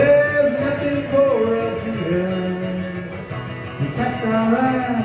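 Live singer-songwriter performance of a ballad: a voice sings long held notes over guitar. The line drops in pitch about a second in, holds another long note, and rises into a new phrase near the end.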